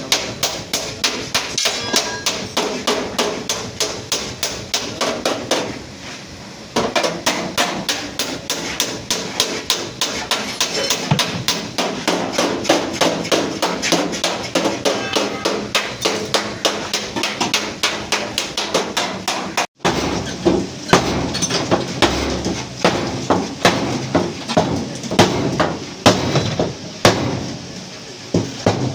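Hammer beating out the sheet-metal front body of a Suzuki Ravi pickup in accident repair: rapid, steady blows, several a second, with a short pause about six seconds in and a brief break about two-thirds of the way through.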